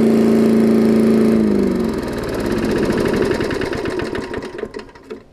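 Late-1970s Briggs & Stratton single-cylinder lawn mower engine running steadily, then shut off about a second and a half in. Its pitch drops and it coasts down in slowing, fading chuffs until it stops near the end.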